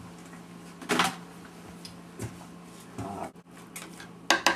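A stainless steel cooking pot and utensils being handled on the stovetop: a clatter about a second in, a few softer knocks, then a quick run of sharp metallic clinks near the end, over a faint steady hum.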